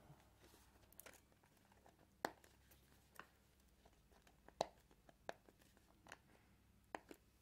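Faint, scattered clicks and scrapes of fingers prying at a small cardboard box and its sealing sticker to open it, about eight short ticks in all, the sharpest a little after two seconds and again around four and a half seconds in. Otherwise near silence.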